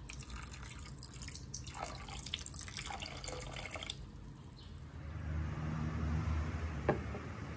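Water dripping and splashing in quick patters for about four seconds. Then a low steady hum takes over, with a single click near the end.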